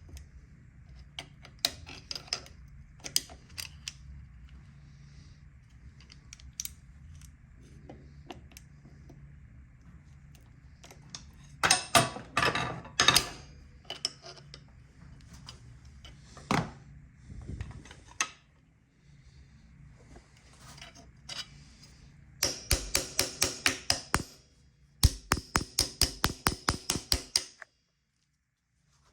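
Hand tools and small metal engine parts being handled while a two-stroke motor is taken apart: scattered metal clicks and knocks, with a cluster of louder knocks a little under halfway through. Near the end come two quick runs of evenly spaced ratchet clicks, about ten a second. A low steady hum runs underneath until about two-thirds of the way in.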